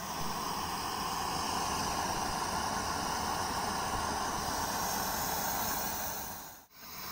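Gas burner under a cast-iron puffed-rice cannon, running with a steady hiss and a low rumble that cuts off near the end.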